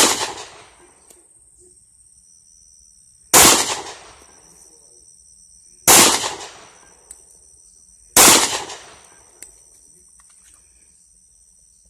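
Four gunshots fired one at a time, about two and a half seconds apart, each a sharp crack followed by a ringing echo that dies away over about a second.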